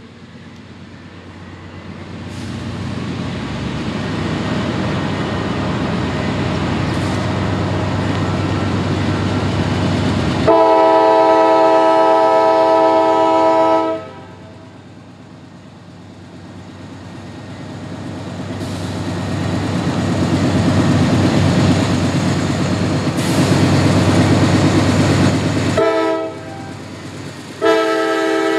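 CSX freight train's diesel locomotives approaching a grade crossing, engine and rail noise building as they near. The locomotive's air horn sounds a chord in the crossing pattern: a long blast about ten seconds in, a short one near the end, then another long blast just before the end.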